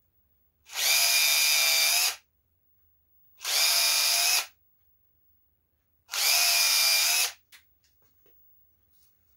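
Cordless drill running in three short bursts of about a second each, boring holes into a boot sole for anti-ice rivet spikes. A few light clicks follow near the end as the drill is set down.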